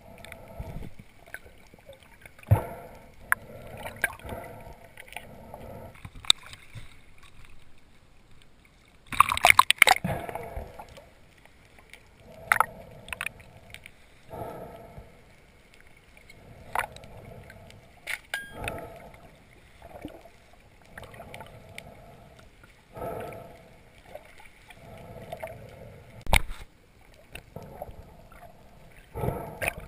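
Underwater sound picked up through a camera housing: muffled water movement and gurgling with scattered sharp clicks and knocks. A louder rushing burst comes about nine seconds in.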